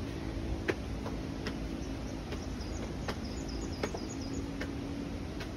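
Regular sharp ticking, about one tick every 0.8 s, over a steady low hum, with a few faint high chirps near the middle.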